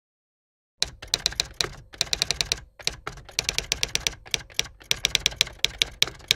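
Typing sound effect: key clacks in quick runs, several a second, with short pauses, starting about a second in.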